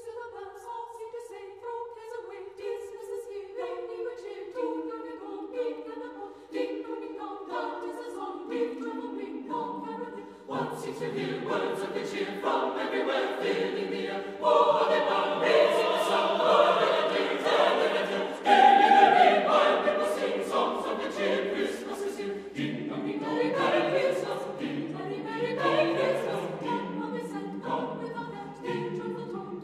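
Choral music: a choir singing, swelling louder about halfway through.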